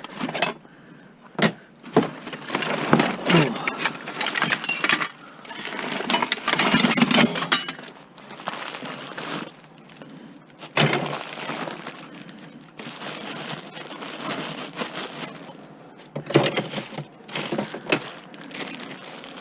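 Junk being pulled out of a cardboard box and sorted by hand: irregular clattering and clinking of hard objects, with rustling and knocks.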